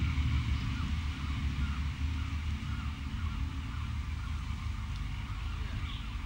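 Level-crossing bell ringing in steady, repeated strokes while the barriers lift after the train has passed, stopping about five seconds in. Under it, a low rumble fades slowly: the OHJ Y-train railcar set pulling away.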